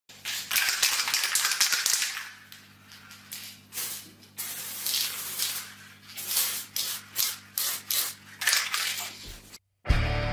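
Aerosol spray can hissing in bursts: one long spray of about a second and a half, then several shorter ones of under a second each. After a brief silence, music begins near the end.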